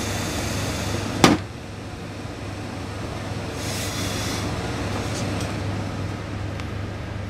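Steam pressing with a hose-fed industrial steam iron over a steady low machine hum. A sharp click about a second in, after which the hum quietens, and a short hiss of steam just past the middle.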